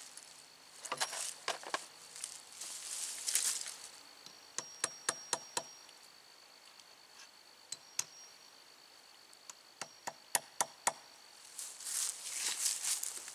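Dry fallen leaves rustling underfoot while a wooden fence pole is handled, with two runs of sharp clicks and knocks, one in the middle and one about two-thirds of the way through.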